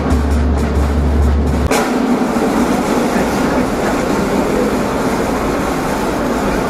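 Music with a strong, steady deep bass cuts off abruptly at an edit about two seconds in. After it comes a steady, rumbling noise of a large audience in a big reverberant arena, with no clear tune or beat.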